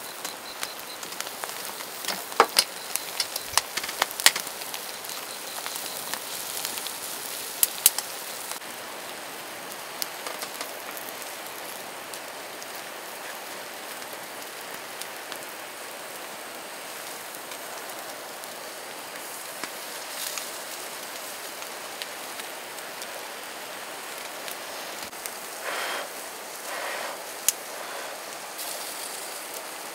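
Steady rain falling, with sharp drip taps scattered through the first several seconds and two short louder rushes near the end.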